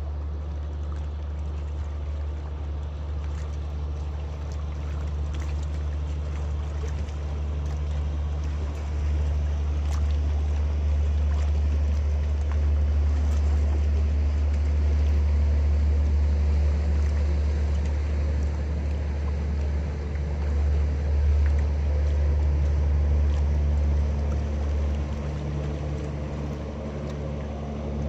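Passing boat's engine: a steady low drone that grows somewhat louder toward the middle.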